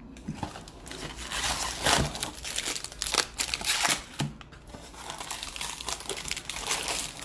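2019 Bowman Draft Super Jumbo card packs crinkling and rustling as they are handled and taken out of their box, a run of irregular crackles.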